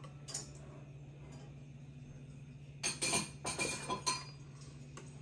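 Chopsticks and a spoon clinking against a ceramic noodle bowl: one light tap near the start, then a quick run of clinks about three seconds in.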